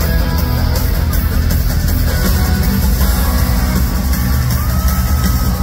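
Live rock band playing loud through a concert sound system, with electric guitars, bass and drums, heard from within the audience. The sound is dense and heavy in the bass and does not let up.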